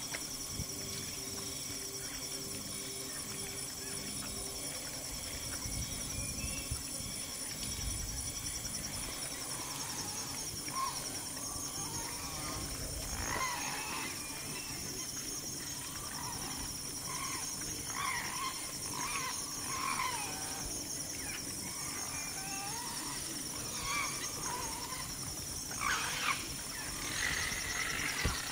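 Tropical forest ambience: a steady, pulsing, high insect chorus. From about ten seconds in comes a series of short animal calls, which grow louder and more frequent near the end.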